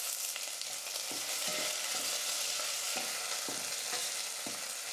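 Chopped onion and curry leaves sizzling in hot oil in a stainless steel pot, stirred with a steel ladle that scrapes the pot now and then, several light strokes over the steady sizzle.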